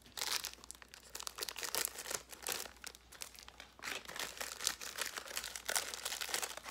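Plastic wrapping of a Peeps marshmallow candy package crinkling irregularly as it is handled and opened.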